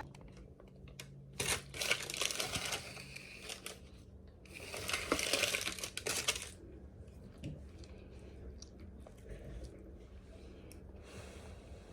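Packaging being handled and crinkled, in two bursts of crackling a couple of seconds each, with softer rustling after.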